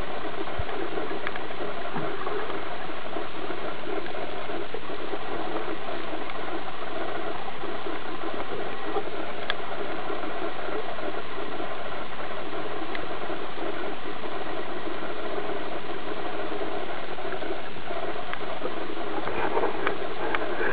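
Steady underwater noise, a dense even hiss with faint scattered clicks, unchanging throughout.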